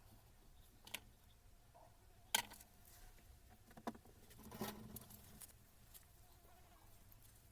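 A few faint clicks and light knocks from hard parts being handled, the sharpest about two and a half seconds in, with a short rustle near the middle, over near silence.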